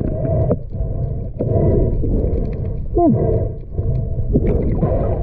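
Muffled underwater noise from a diver swimming with the camera below the surface: a steady low rumbling, with a short falling tone about three seconds in.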